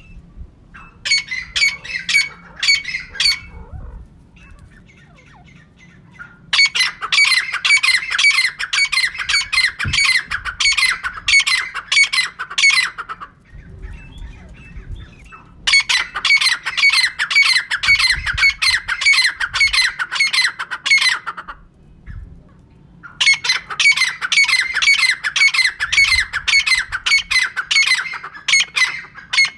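Female teetar (francolin) calling: rapid runs of repeated harsh, squawking notes in four bouts, a short one about a second in, then three longer bouts of several seconds each with pauses between.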